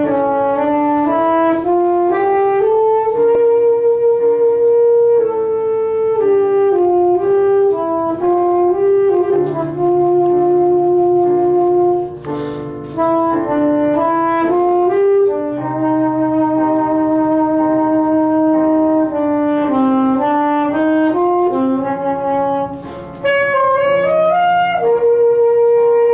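Alto saxophone playing a solo melody of long held notes, with piano accompaniment underneath.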